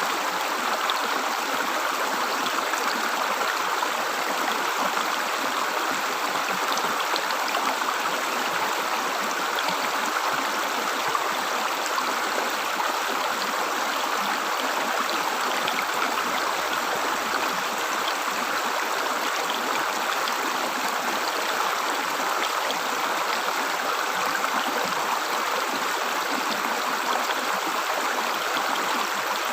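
River water flowing and gurgling over stones, a steady unbroken rush.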